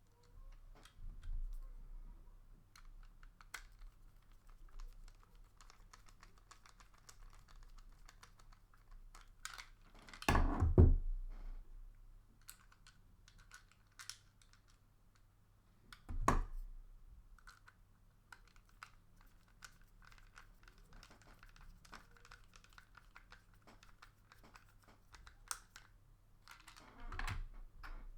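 Small irregular clicks and ticks of a Phillips screwdriver driving screws back into a plastic toy car chassis, with two louder knocks about ten and sixteen seconds in.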